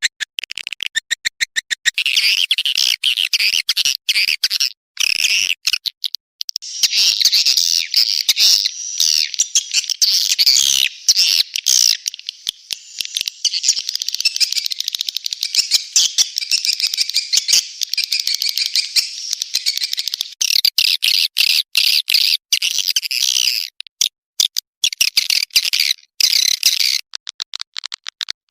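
Recorded swiftlet lure call: rapid trains of dry clicks, then dense, high twittering chirps from a mass of swiftlets, with the clicks returning near the end. It is a call track played in swiftlet houses to draw the birds in to roost.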